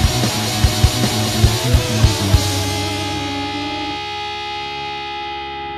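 Heavy rock music with guitar and drums. The drum hits stop about two and a half seconds in, and a final guitar chord rings on, slowly fading.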